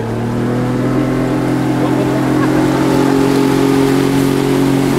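A boat's engine running under power, its hum rising a little in pitch and loudness in the first second as the boat speeds up, then holding steady.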